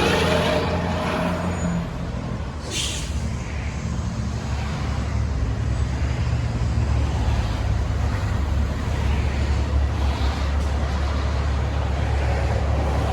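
Heavy diesel trucks at the roadside: a passing vehicle fades out, a short sharp air-brake hiss comes about three seconds in, and then a truck's diesel engine runs with a steady low drone.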